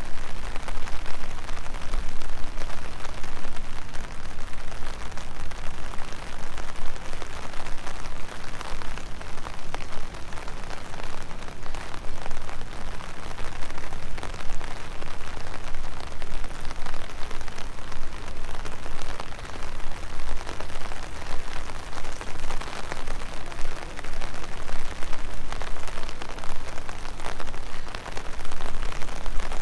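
Steady rain falling, a dense patter of many small drops, with a steady low rumble underneath.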